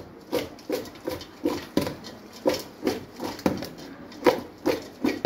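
Boiled cassava chunks tossed in a steel pot by hand, knocking against the pot's sides in a steady rhythm of about two or three beats a second as a hot tempering is mixed through them.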